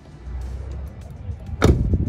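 A Chevrolet TrailBlazer SS door shut once, about one and a half seconds in: a single sharp, heavy thud. It is the loudest sound here, with a low rumble before it.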